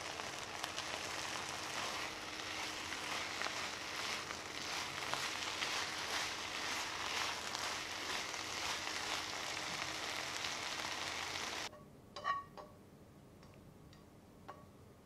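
Liver and garlic chives sizzling and crackling in a frying pan as they are stir-fried in oyster sauce. The sizzle cuts off suddenly near the end. A few light clicks follow as chopsticks and pan meet while the food is slid onto a plate.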